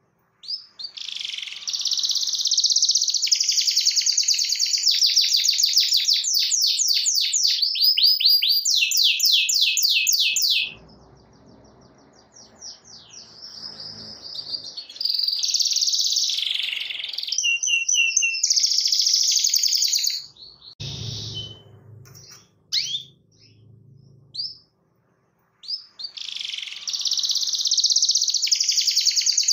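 Domestic canary singing long rolling phrases of fast, rapidly repeated trilled notes. The song breaks off twice, with only a few short chirps in each gap, then resumes near the end.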